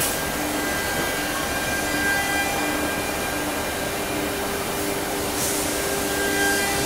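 CNC router changing tools automatically: a steady machine whir with faint steady tones, and a brief hiss a little over five seconds in.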